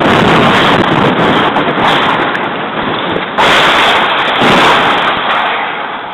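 An explosion blast hits suddenly and very loudly, overloading the recording into a harsh roar. The roar surges again about three and a half seconds in, then slowly dies away.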